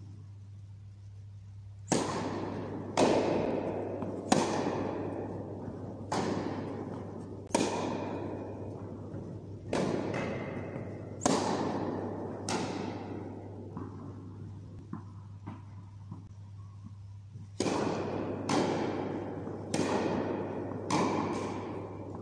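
Tennis rally on an indoor carpet court: the ball is struck by rackets and bounces, each hit a sharp pop with a long echo from the hall, about one every second or so. A first run of hits stops about 13 s in, and a second run starts about 17 s in. A steady low electrical hum lies under it throughout.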